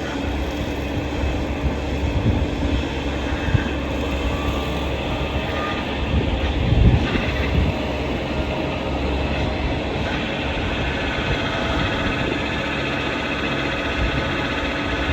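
Bobcat E55 mini excavator engine running steadily, with a few short low knocks and clunks, the loudest about halfway through.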